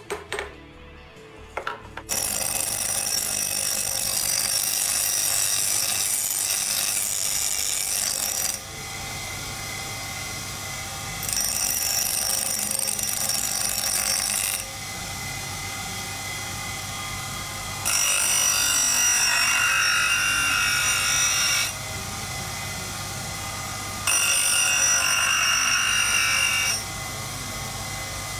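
A few hammer blows on steel at the start, then a bench grinder's abrasive wheel running. A steel knife blade is pressed to the wheel four times for a few seconds each, and each pass is a louder, hissing grind over the wheel's steady run between passes.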